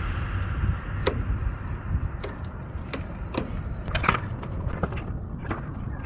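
Scattered sharp clicks and light metallic clinks of hand work on cables and hardware, over a steady low rumble.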